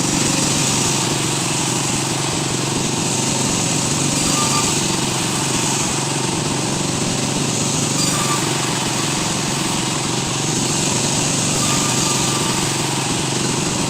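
A woodworking power machine running steadily at constant speed.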